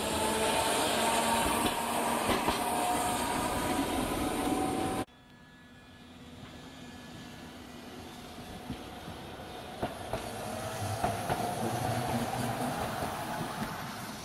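Hiroshima Electric Railway 700-series streetcar passing close by, its electric traction motors whining and rising in pitch, with clicks from the wheels on the rails. It cuts off suddenly about five seconds in. Another streetcar follows further off, with a fainter rising motor whine and a few sharp wheel clicks.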